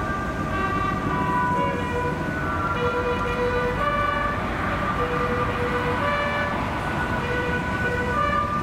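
Bugle call sounding for the hoisting of the Japan Maritime Self-Defense Force ensign aboard moored destroyers: a slow melody of held notes, each about half a second to a second long.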